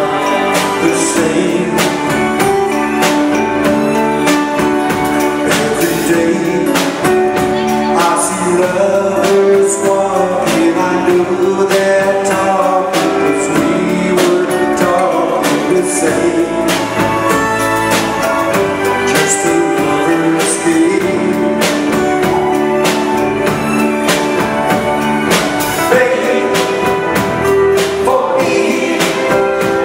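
Live band playing a song: singing over guitars, bass guitar, keyboards and a steady drum beat.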